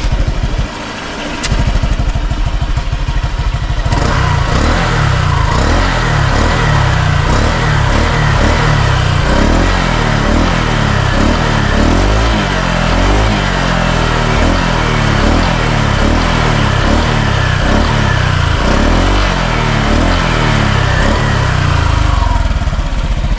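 Honda Click scooter's single-cylinder engine running through a Sun Racing Silent Killer aftermarket exhaust, idling at first and then revved in quick repeated throttle blips from about four seconds in. The pipe is not very loud and sounds much like the stock exhaust.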